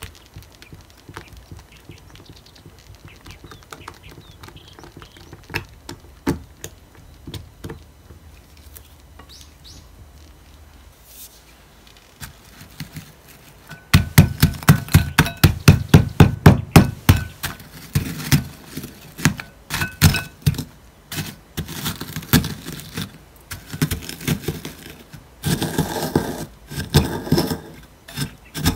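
Faint scraping of a silicone spatula folding soft cream in a glass bowl, then from about halfway a loud run of sharp knocks, about five a second, as Lotus caramel biscuits are pounded in a glass bowl with the end of a wooden rod. The knocks then slow and grow uneven, with crunching as the biscuits break into crumbs.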